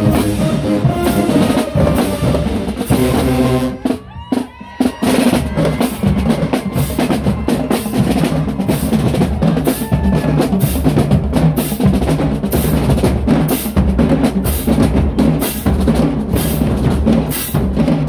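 Marching band drumline playing a cadence on bass drums and snares. Horns hold pitched notes for the first few seconds, there is a short break about four seconds in, and then the drums carry on alone.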